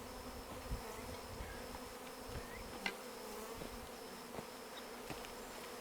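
Honeybees buzzing in a steady hum around a hive that a nuc colony has just been moved into, many of the displaced bees still flying while they find the entrance.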